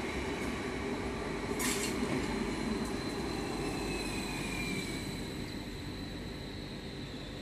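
Stadler FLIRT electric multiple unit (Vy Type 74/75) rolling past on the rails and moving away, its wheel and rail noise fading as the last car goes by. A brief sharp click comes a little under two seconds in, and a faint wheel squeal sounds near the middle.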